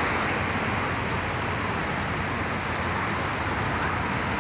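Scania city bus's diesel engine idling steadily while the bus stands still, under a wash of street noise.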